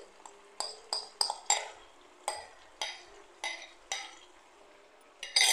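A cooking spoon clinking and knocking against the pan as chicken is stirred into tomato masala: about eight short, sharp clinks, with a louder knock near the end.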